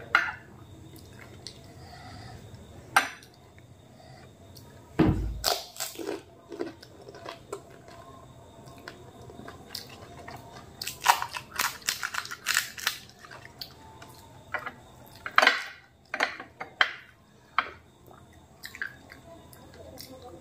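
Close-up eating sounds of phuchka (pani puri): crisp hollow puri shells cracking and crunching, with wet chewing and occasional spoon clicks against glass bowls. Scattered sharp crackles, with a dense run a little past the middle and one heavier thump about five seconds in.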